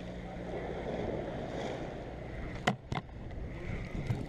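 Spinning fishing reel being cranked to wind in line, with wind on the microphone and a low steady hum underneath. Two sharp clicks come close together a little under three seconds in.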